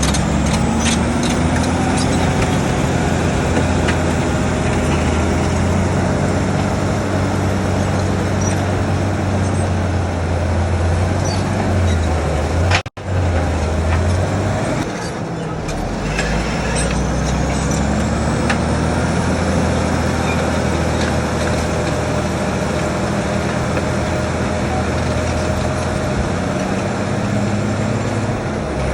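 Bulldozer's diesel engine running and working, its pitch rising and falling, with scattered clanks. The sound breaks off sharply about 13 seconds in and resumes at once.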